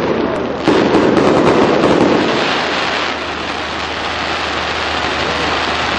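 Fireworks going off in a dense, continuous racket of noise. The loudness steps up just under a second in.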